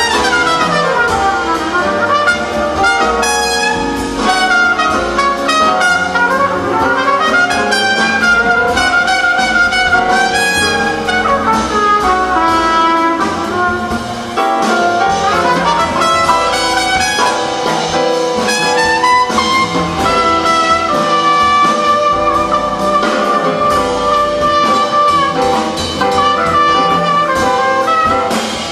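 Live big band jazz with a trumpet playing the lead melody out front over the band and drums. Near the start a note falls away in pitch.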